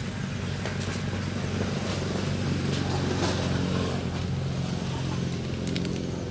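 An engine running steadily in the background, a little louder around the middle.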